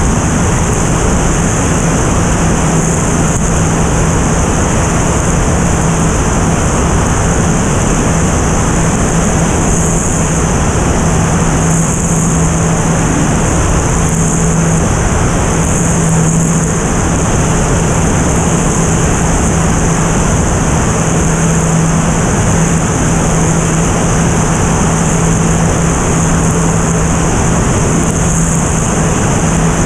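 Single-engine propeller aircraft in flight: a steady drone with a constant low hum under heavy rushing air noise.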